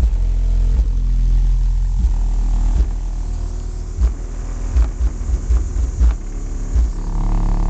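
Bass-heavy hip-hop playing through three 12-inch Crunch Groundpounder subwoofers on a Kicker KX1200.1 amplifier. The deep bass runs steadily, then a quick run of separate bass hits comes about halfway through.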